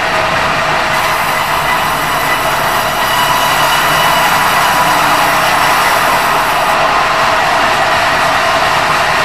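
Steady, loud mechanical running noise without a break, getting a little louder about three seconds in.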